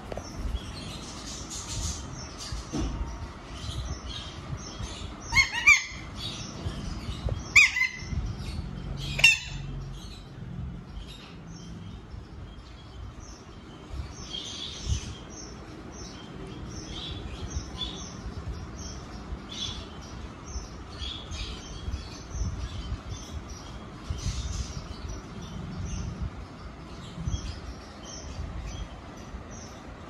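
Alexandrine parakeets chirping with many short, high calls, broken by three louder calls about five and a half, seven and a half and nine seconds in.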